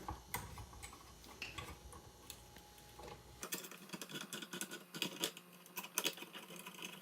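Light, irregular clicks and taps of small screws and metal parts being worked loose and handled at a clothes dryer's electrical terminal block, busier in the second half.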